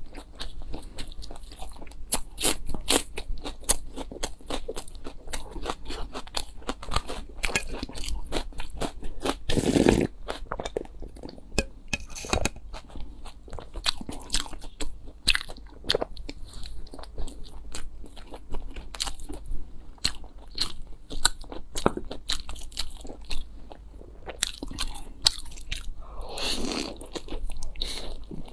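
Close-miked eating sounds: a person chewing and biting with dense, irregular crisp crunches, and a couple of longer, fuller mouth sounds about a third of the way in and near the end.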